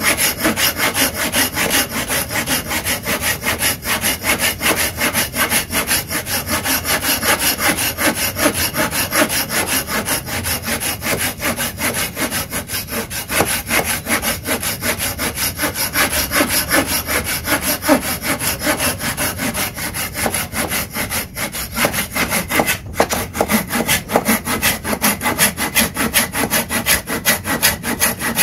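Takagi Shark Saw folding hand saw cutting through a wooden block in fast, steady back-and-forth strokes, the teeth rasping through the wood.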